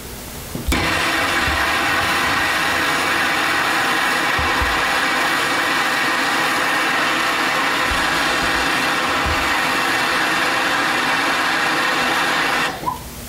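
Trigger-start MAP-propane hand torch flame hissing steadily as it heats a punctured aluminum coil tube to brazing temperature. It starts suddenly about a second in and cuts off near the end.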